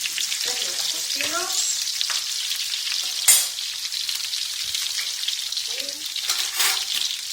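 King prawns sizzling steadily in hot oil in a shallow paella pan, with a few short squeaks and one sharp knock about three seconds in.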